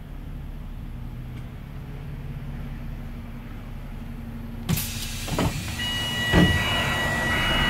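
Diesel engine of a Wright-bodied DAF double-decker bus running with a low, steady hum, heard from inside the bus. Nearly five seconds in a sudden louder hiss sets in, with several knocks and a steady high-pitched whine.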